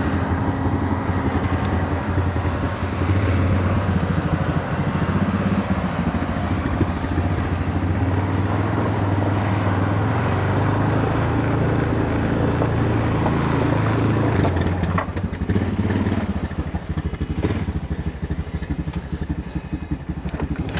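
Combine harvester running steadily in the field, its big diesel engine note wavering slightly in pitch partway through.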